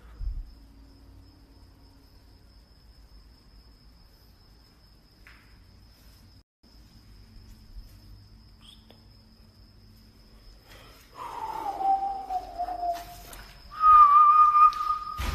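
A faint, steady, high insect trill like a cricket's runs under most of it. In the last few seconds a whistle-like tone slides slowly down in pitch, then a louder steady whistle-like tone starts near the end.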